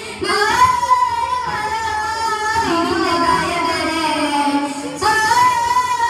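Boys singing a Mappila devotional song (Mappilappattu) into microphones, a long ornamented melody line with a new phrase starting about five seconds in.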